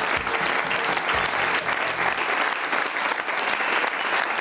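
Studio audience applauding steadily, many hands clapping. Low theme music runs underneath for the first two seconds or so, then stops.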